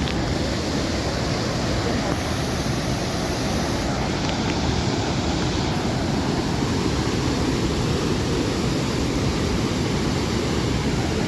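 Dhuandhar waterfall on the Narmada river: a steady, unbroken rush of falling water.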